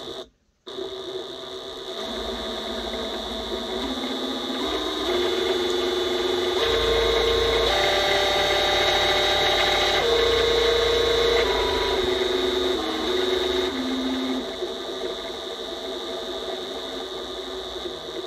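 Small battery-powered DeWalt power-tool motor driving a belt and pulley, running with a steady whine. Its pitch steps up and down several times as the speed is varied through a salvaged trigger switch. It runs fastest and loudest through the middle and cuts out briefly just after the start.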